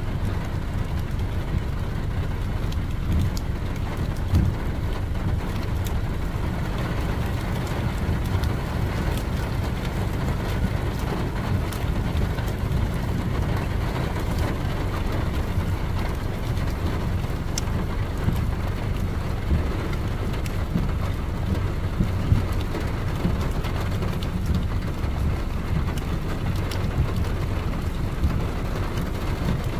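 Steady low rumble of a car driving on a wet road, heard from inside the cabin, with scattered light ticks of raindrops.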